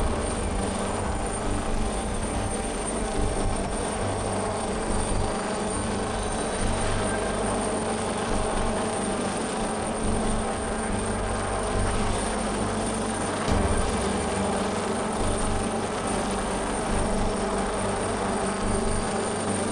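Leonardo AW139 twin-turbine helicopter hovering overhead, its rotor and engines running steadily with a thin high whine.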